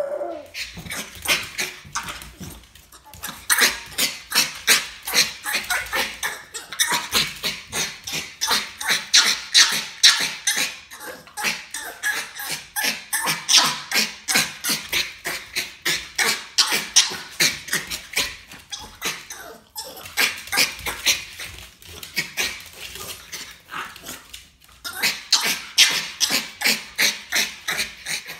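Norwich terrier demand barking: the tail of a howl at the very start, then a rapid, nonstop string of sharp barks, about three a second, broken only by a few brief pauses.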